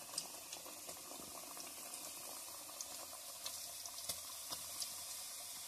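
Tapioca slices frying in hot coconut oil as more are dropped in: a steady faint sizzle with scattered small pops and crackles.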